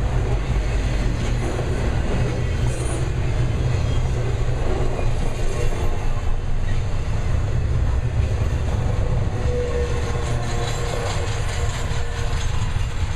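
Intermodal freight cars carrying semi-trailers rolling past: a steady rumble of steel wheels on the rails with some clickety-clack.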